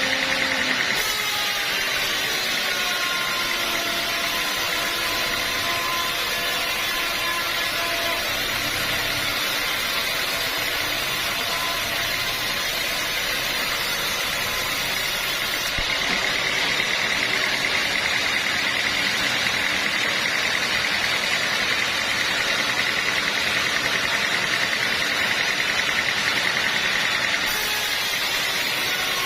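Sawmill running steadily as its blade saws through hard acacia wood, a continuous machine noise with a steady high whine. The sound changes character about a second in, again about halfway through, and once more near the end.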